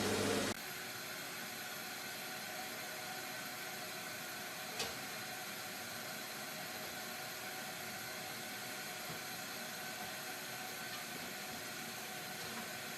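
Vacuum cleaner motor running with a steady whir, with a single sharp knock about five seconds in.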